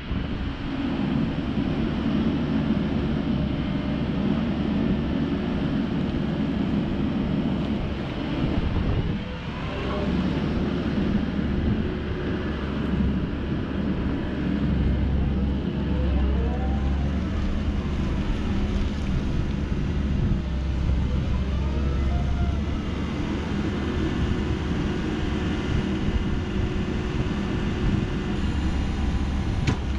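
Komatsu PW98MR-6 wheeled excavator's diesel engine running steadily under hydraulic load while the boom, stick and bucket are worked and the upper structure slews, with a brief dip about nine seconds in.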